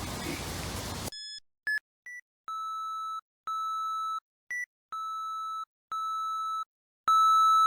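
Electronic beeping against dead silence: a few short high blips, then five steady single-pitched beeps of under a second each at about one a second, with shorter higher blips between them. The last beep is the loudest.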